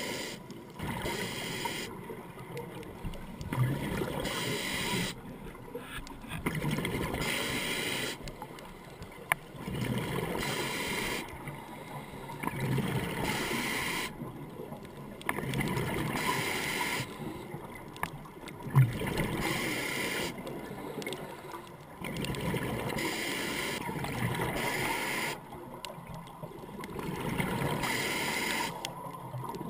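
A scuba diver breathing through a regulator underwater: bursts of hiss and bubbling about every three seconds, with quieter pauses between breaths and an occasional sharp click.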